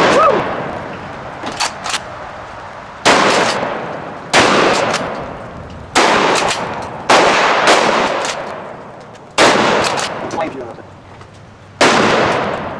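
Shotgun fired six times at an irregular pace, roughly one shot every one to two and a half seconds, each blast trailing off in a long echo. A few small clicks sound between some of the shots.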